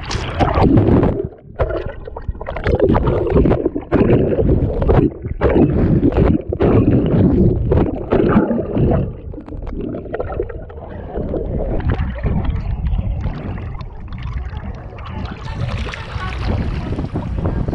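Loud, uneven rush of water and wind noise on a boat at sea, surging and dipping. A steadier hiss joins about fifteen seconds in.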